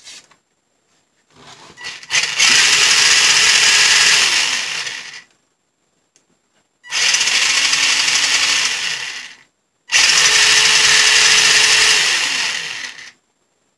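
Kyosho Raider's electric motor and drivetrain revving on the bench, spinning the rear wheels in the air, under a newly fitted ESC and receiver. Three bursts of throttle, each a loud steady whir that winds down in pitch as the throttle is let off.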